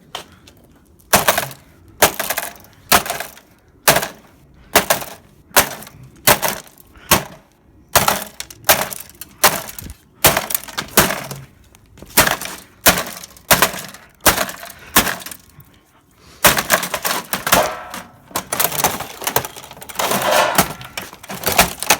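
Repeated hard blows of a hand tool on a desktop computer, about one a second, with crashing and breaking sounds, as the motherboard is battered loose. From about three quarters of the way in the strikes come thick and fast, in a rattling, splintering run.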